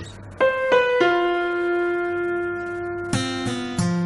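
Background piano music: three notes struck in quick succession about half a second in and left ringing, then three more struck near the end.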